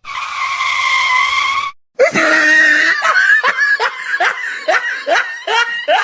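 A loud, hoarse scream held for under two seconds, then a rapid run of short cries, each falling in pitch, about two to three a second.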